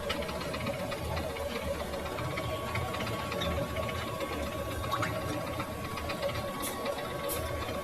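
Metal lathe running with a steady mechanical hum and rumble; a thin steady tone joins in about two seconds in.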